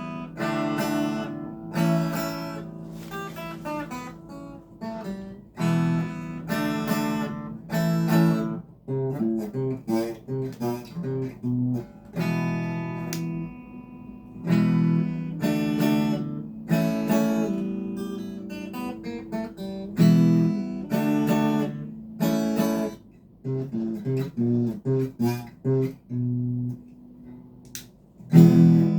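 Legacy Les Paul LP 300 electric guitar played on a clean tone, alternating strummed chords with picked single notes and arpeggios.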